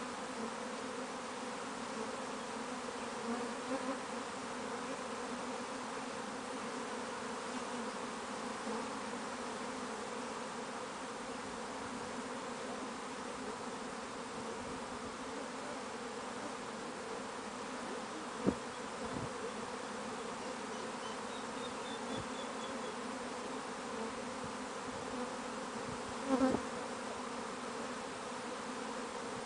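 A swarm of honey bees buzzing steadily as it flies in and moves into a wooden hive box: the dense, even hum of thousands of wingbeats. There is one short tap about two-thirds of the way through, and a brief louder buzz near the end.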